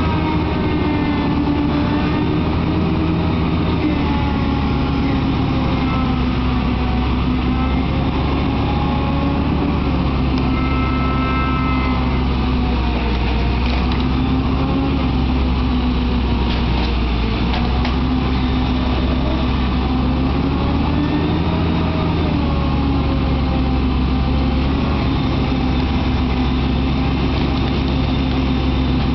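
Heavy engine running steadily throughout, its pitch rising and falling slowly as it works under varying load.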